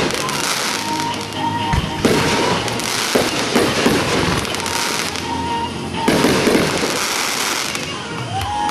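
Fireworks display: dense crackling with heavier bursts going off about every one to two seconds, the biggest near the start, about two seconds in and about six seconds in.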